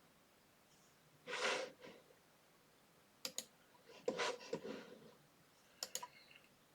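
Quiet computer mouse clicks, two quick click pairs about three and six seconds in, with soft breaths in between.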